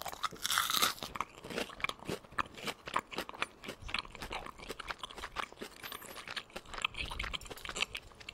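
A person biting into and chewing crispy deep-fried pork coated in frying-mix batter: a loud crunch about half a second in, then continuous crackly crunching as it is chewed.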